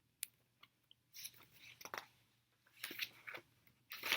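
Faint paper rustling and a few soft clicks: a picture book's page being turned and handled.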